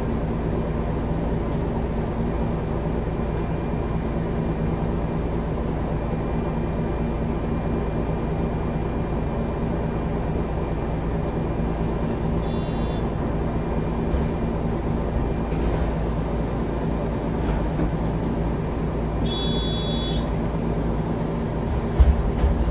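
MAN Lion's City G articulated bus's diesel engine idling at a stop, a steady hum heard inside the passenger cabin. A short electronic beep sounds twice, once about halfway through and once near the end, and a few thumps come at the very end as a passenger boards.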